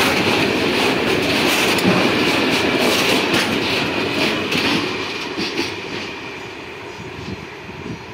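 Freight train's hopper wagons rolling past close by, wheels clacking over the rail joints with a steady high-pitched ring from the wheels. The sound fades away over the last few seconds as the end of the train pulls off.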